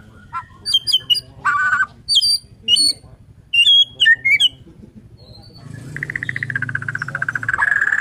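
Caged Bornean white-rumped shama (murai batu borneo) singing: a quick run of varied short chirps and whistles, then a long buzzing trill held on one pitch near the end.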